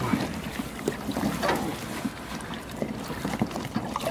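Irregular splashing and knocking in the water as a cast net holding fish is hauled in, with wind noise on the microphone.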